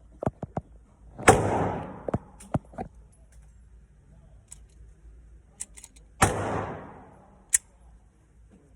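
Two shots from a compact pistol, about five seconds apart, each with a long echoing tail. Short sharp clicks and knocks come before, between and after the shots.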